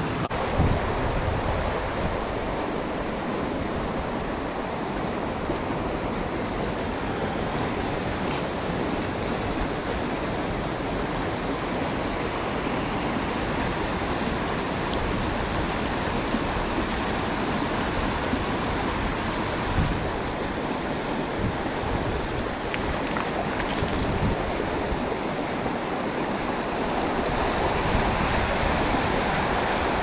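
Mountain stream rushing over rocks and boulders, a steady wash of water noise, with a few brief low buffets of wind on the microphone.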